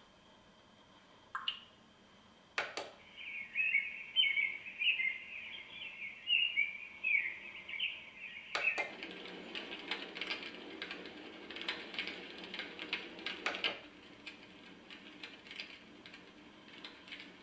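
iDealSleep white noise machine's small speaker playing its built-in sound tracks in turn. After a couple of clicks, a birdsong track chirps for about five seconds. Another click switches it to a noisy track full of crackles.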